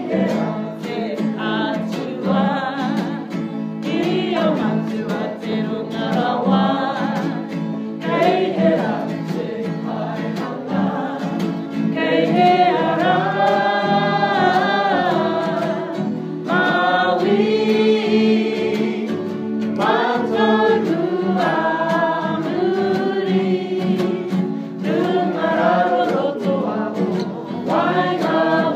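A group singing a Māori waiata to a strummed acoustic guitar, with some long held notes.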